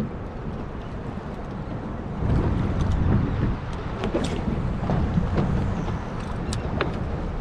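Wind rumbling on the microphone and water sounds on a small open boat, louder from about two seconds in, with a few faint sharp clicks.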